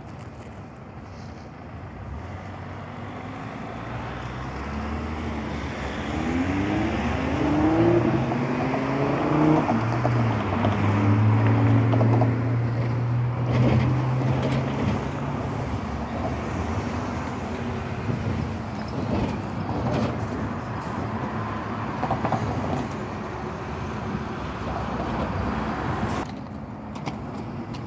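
A vehicle passing: its motor rises in pitch in steps as it picks up speed, then holds a steady hum and fades away, over general street noise.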